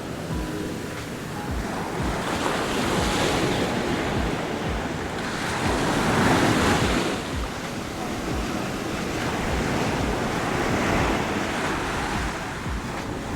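Heavy surf from a high, storm-driven sea breaking and washing up the beach, swelling and falling, with one wave crash loudest about six seconds in. Strong wind buffets the microphone throughout.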